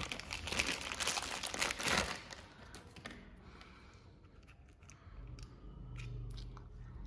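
Clear plastic packing bag crinkling loudly as hands pull a car-speaker crossover out of it, easing off after about two seconds into faint clicks of handling the unit and its wires. A low hum comes in about five seconds in.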